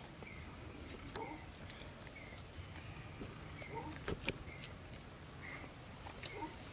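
Forest ambience: a steady high insect drone, short chirps repeating every second or so, and a few sharp clicks.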